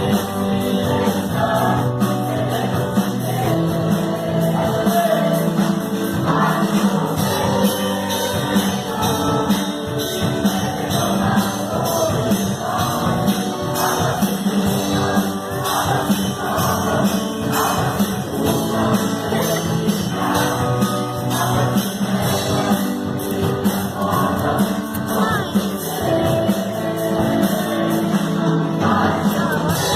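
Live gospel music with a steady, driving beat and a choir singing.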